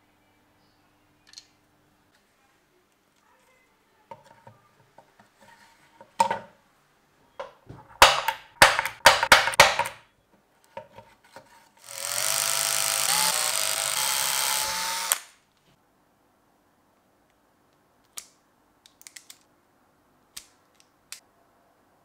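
Workshop handling clicks and a quick run of loud sharp knocks, then a power drill running steadily for about three seconds before stopping, followed by a few light clicks.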